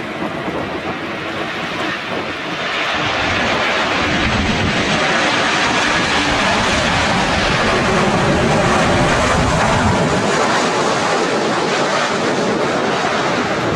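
Airliner passing close by: a steady engine roar that swells over several seconds to a peak, then eases slightly near the end.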